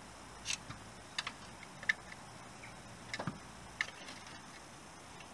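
Scattered sharp clicks and taps of hand tools against the engine as the stuck crankshaft oil seal carrier plate is pried off the block of a VW Golf mk2, with a duller knock about three seconds in. The plate is held on its locating pins.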